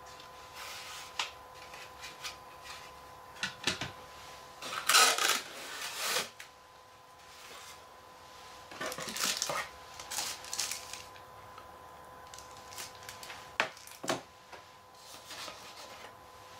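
Unboxing handling noises: packaging rustling in bursts, and a few sharp knocks as the plastic decoder and its remote are set down on a wooden table and items are taken from the cardboard box. A faint steady hum runs underneath.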